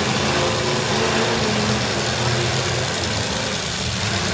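Engines of demolition-derby pickup trucks running hard in the arena, their pitch shifting as they rev, over a steady wash of noise.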